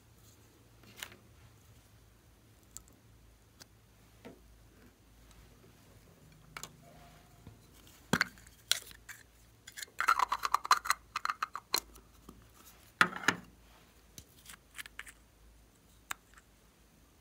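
Small clicks and taps of plastic makeup containers being handled and opened: a lipstick tube, a round compact and a nail polish bottle. There is a quick flurry of clicking and rattling about ten seconds in and another sharp rattle a few seconds later.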